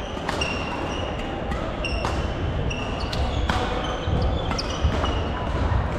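Badminton play: rackets crack against shuttlecocks every half second or so, mixed with short high squeaks of court shoes on the wooden floor. Voices and hall ambience echo underneath.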